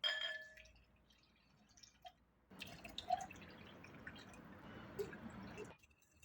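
A sharp ringing clink, then a few drips and about three seconds of water splashing before it stops.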